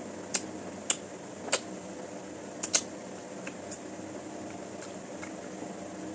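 Eating noises from someone eating salmon-head soup: five short, sharp clicks and smacks in the first three seconds, the last two close together. A steady fan hum runs underneath.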